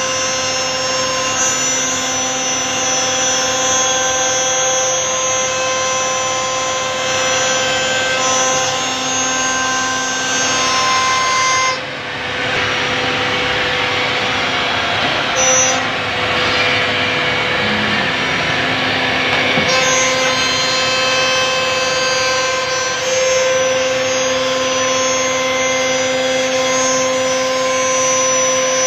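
Holztek RT1325V CNC router's spindle whining steadily as its bit cuts through a board, over a hiss of cutting. About twelve seconds in the whine fades back and a broader rushing noise takes over for about eight seconds, then the whine returns.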